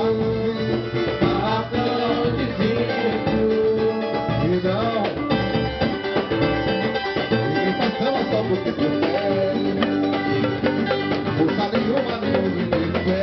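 Live samba band playing an instrumental passage: plucked strings and a melody line over steady samba percussion.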